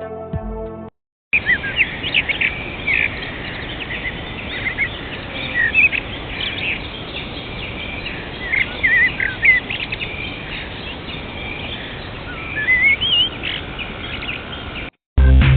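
Birds chirping, short scattered calls over a steady background hiss. It starts abruptly after a second of music and cuts off just before music starts again.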